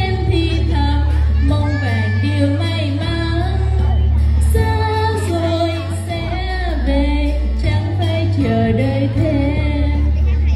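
Two girls singing a Vietnamese song into microphones over a backing track with a heavy, steady bass line.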